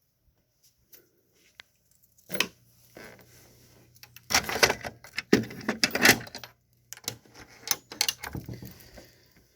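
Irregular rattling and clicking of something being handled, loudest in a cluster of bursts from about four to six and a half seconds in. A faint low hum runs under the first part and stops about six and a half seconds in.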